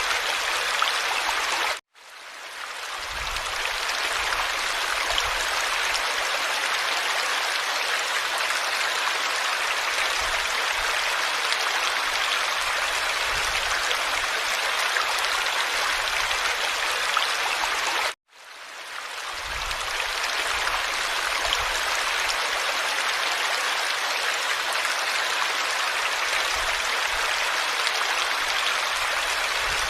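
Steady rush of flowing stream water. It cuts out abruptly twice, about two seconds in and again past the middle, and each time fades back in over a couple of seconds.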